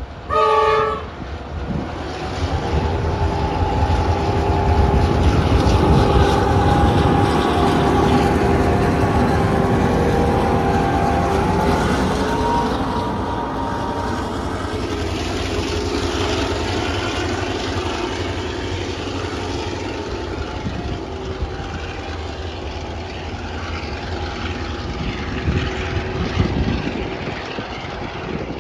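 Southern Shorthaul Railroad diesel-electric locomotives hauling a freight train past, with a short horn blast about half a second in. After it the locomotive engines drone steadily and the wagons rumble along the rails.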